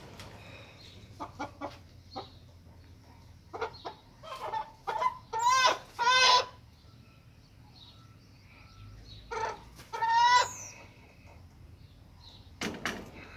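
Chickens clucking, with louder drawn-out wavering calls in a run a few seconds in and again about ten seconds in. A short knock sounds near the end.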